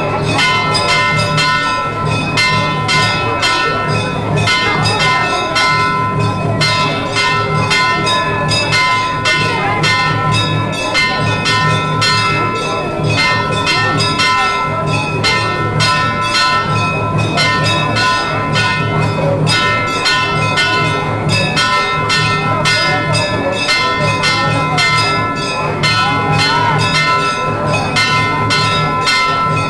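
Temple bells ringing continuously in quick, even strokes, several a second, their tones ringing on over one another, with a low pulsing beat underneath.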